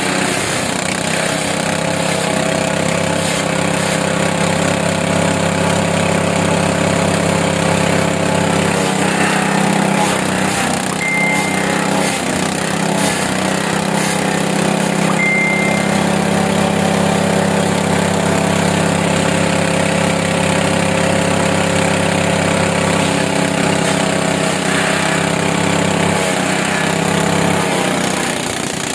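Wood chipper's 7.5 hp gasoline engine running steadily, its pitch wavering briefly now and then.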